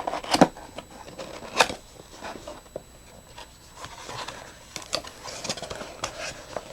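Cardboard product box opened by hand: a few sharp clicks and snaps, the loudest about a second and a half in, then scattered clicking, scraping and rustling as the flaps and contents are handled.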